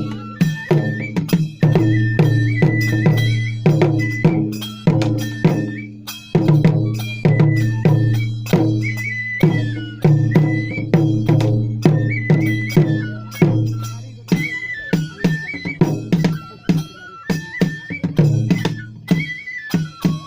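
Kagura festival music: taiko drums beaten in a fast, continuous rhythm, with a high bamboo flute playing a stepping melody over them.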